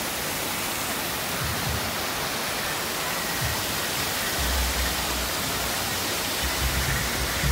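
Steady rush of falling water from a landscaped rockwork waterfall. Low rumbles join in from about halfway.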